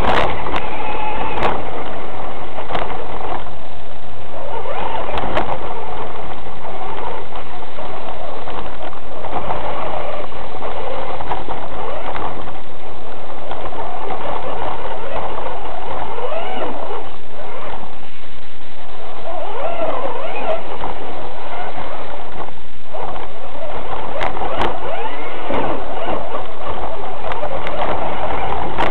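A 1/6-scale RC Hummer's motor and gears whining loudly through its on-board camera's microphone, rising and falling in pitch as the throttle changes, over a steady rattle and rumble from driving across rough ground, with scattered clicks.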